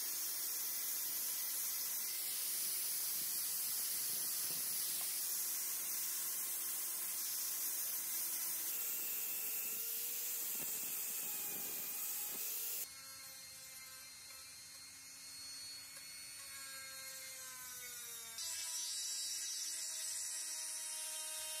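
Angle grinder fitted with a flap disc grinding rust off a steel axe head: steady motor whine under a loud grinding hiss. About 13 s in it cuts to a quieter motor whose pitch falls, and near the end a small electric drill with an abrasive bit runs inside the axe's eye.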